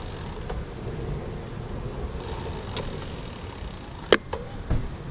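Riding noise from a moving bicycle: a steady low rumble of wind and tyres on the road. A sharp click comes about four seconds in, with a softer knock half a second later.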